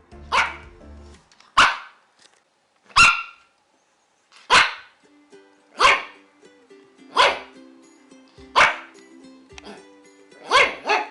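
A dog barking loudly in single barks, about one every second and a half, with two quick barks together near the end, over soft background music.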